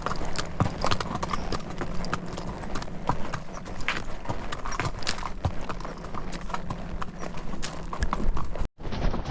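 Horse hooves striking rocky trail at a walk, an uneven clatter of hoofbeats, with the sound cutting out for a moment near the end.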